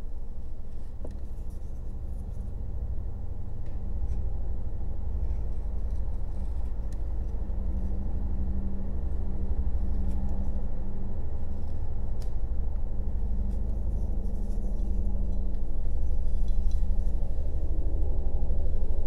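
A steady low hum, swelling slightly near the end, with a few faint clicks of a carving gouge cutting into basswood.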